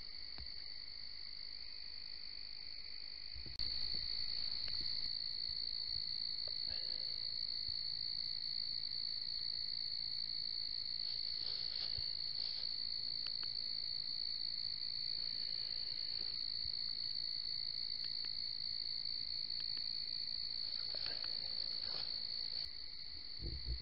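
Steady, unbroken night chorus of crickets and other insects, a continuous high-pitched ringing, with a few faint clicks and rustles.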